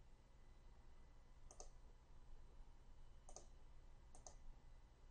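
Three faint computer mouse clicks, each a quick press-and-release, the last two close together, over a low steady hum.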